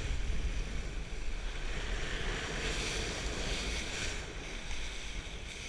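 Wind buffeting the microphone of a kitesurfer's action camera over the steady hiss and rush of the board planing through choppy water and spray.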